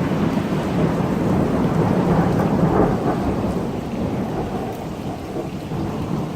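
Rolling thunder from a close lightning strike, rumbling loudest about two to three seconds in and then easing, over steady heavy rain.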